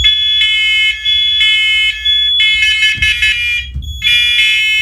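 Several First Alert smoke and carbon monoxide alarms sounding their test alarms at once: loud, high beeps whose patterns overlap and drift out of step with one another.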